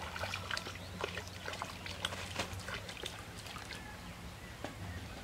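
Water splashing in short, irregular bursts as a hooked fish thrashes at the surface of a pond.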